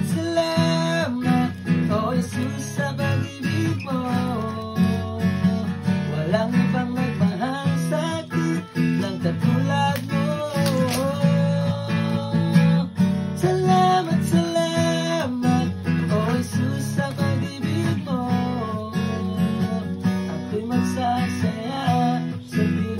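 Acoustic guitar strummed and picked with no singing: an instrumental passage of a Tagalog worship song.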